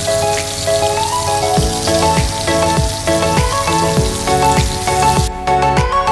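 Background music with held melodic tones and, from about a second and a half in, a steady kick-drum beat, laid over the hiss of fish frying in oil. The frying hiss cuts off suddenly near the end, leaving only the music.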